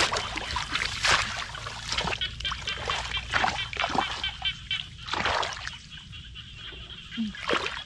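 Shallow muddy paddy water splashing and sloshing as a woven bamboo plunge-basket fish trap is worked into it and a hand gropes inside the basket, with a splash every second or so. A fast, high, repeated chirping runs steadily underneath.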